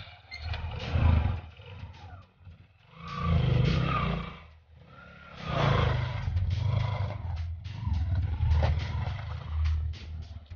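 Small motorcycle engine running and revving in several surges as the bike pulls away, fading as it rides off near the end.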